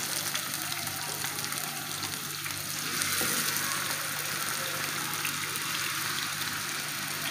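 Spice-rubbed fish pieces sizzling steadily as they shallow-fry in hot oil on a flat pan, with a low steady hum underneath.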